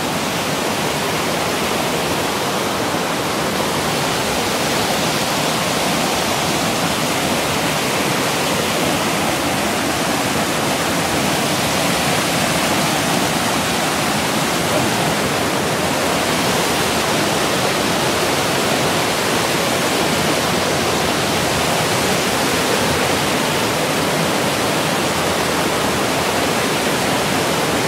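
Waterfall: water falling and rushing, a loud steady roar that stays even throughout. It is running high after heavy rain.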